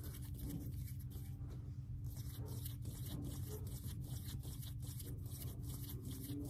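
ASMR hand sounds close to the microphone: palms and fingers rubbing and flexing, giving a string of quick, crisp crinkling clicks, over a low steady hum.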